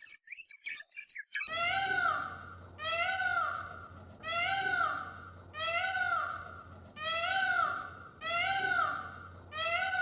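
Kitten meowing over and over, seven near-identical rising-and-falling meows about a second and a bit apart, over a low steady hum. Before the meows begin, about a second and a half in, there are brief high chirps.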